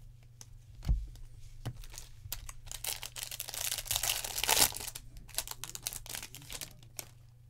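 Foil trading-card pack wrapper being torn open and crinkled in quick bursts, thickest about halfway through. A single thump about a second in.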